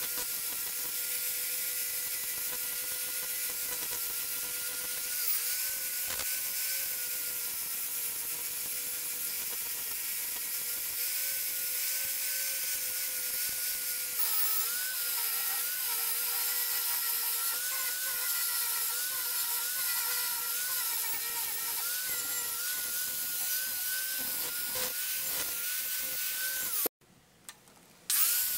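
Electric angle grinder with a flap disc grinding rust off a steel hacksaw frame: a steady high whine with a hiss of abrasion, its pitch dipping slightly as the disc is pressed into the metal. It breaks off for about a second near the end, then starts again.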